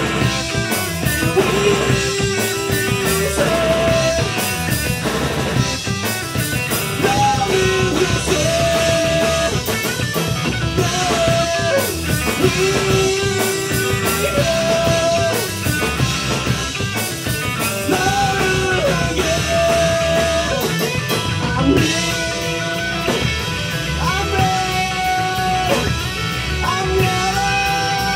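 A live metal/prog rock band plays loud: distorted electric guitar, bass guitar and drum kit, with a man singing long held notes over them.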